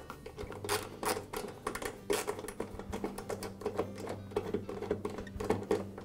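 Screwdriver backing out a screw from a lawn mower's plastic transmission cover: a string of irregular clicks and light knocks from the tool.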